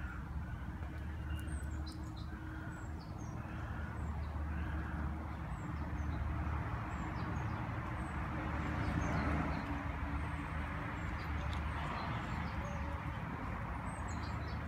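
Small birds chirping, many short high calls scattered throughout, over a steady low rumble of outdoor background noise that swells a little around the middle.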